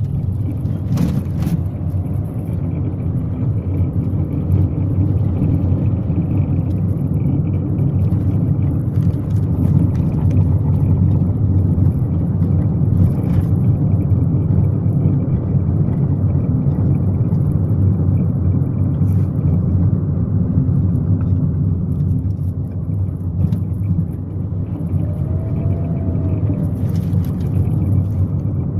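Mitsubishi Mirage G4 on the move, a steady low rumble of road and running noise with faint intermittent clicks of a rattle from the driver-side front brake: a caliper pin rattling, the noise going away when the brake is touched lightly.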